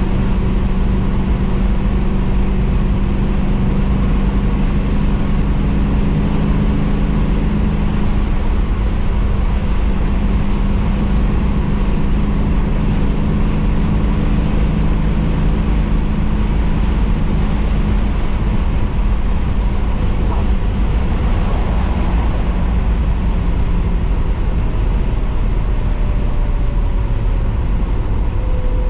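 Triumph TR7 V8 cruising at a steady speed, heard inside the cabin: a steady engine drone over heavy low road rumble.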